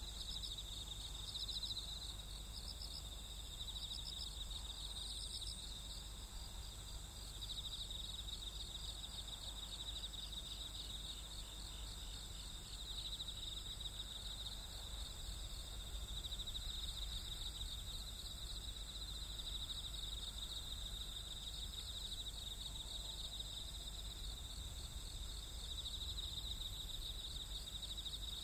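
Night insects calling in chorus: a pulsing, high trill that swells and fades over a steadier, higher buzz, with a low steady rumble underneath.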